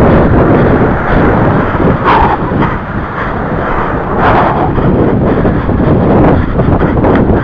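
Wind buffeting the microphone of a camera carried on the move, a loud rumbling rush of noise, with two brief louder swells about two and four seconds in.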